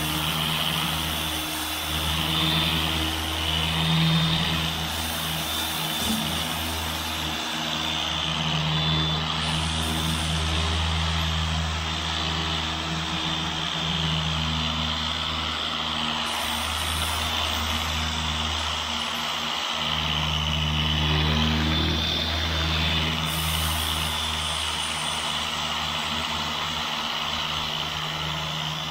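Porter-Cable electric dual-action (DA) sander with an 80-grit disc running and sanding the painted sheet-metal edges of a pickup bed. It gives a steady motor hum with a high whine above it.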